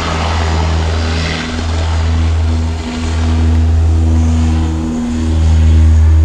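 ATR 72 twin-turboprop airliner at take-off power on its take-off roll: a loud, deep propeller drone with a steady pitched hum above it, swelling and dipping every second or two.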